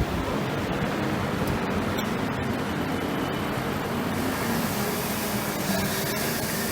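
Steady mechanical background noise with a faint wavering low hum, like a running motor or fan.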